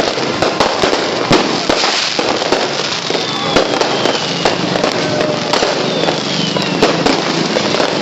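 Fireworks and firecrackers going off nonstop: a dense, loud crackle of many overlapping bangs, with a few whistles sliding down in pitch.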